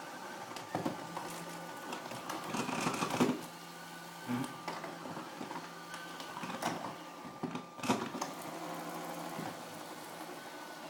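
Roboking robot vacuum cleaner running, its motor and brushes humming steadily, with scattered knocks and rustles as it moves over the floor.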